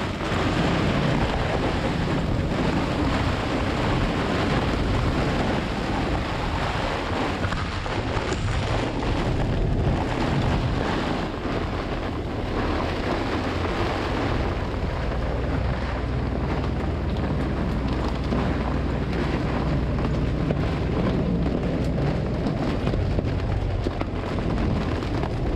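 Microburst storm wind rushing over the sailboat and buffeting the microphone in a dense, steady noise with a strong low rumble, mixed with heavy rain on the cockpit's canvas bimini.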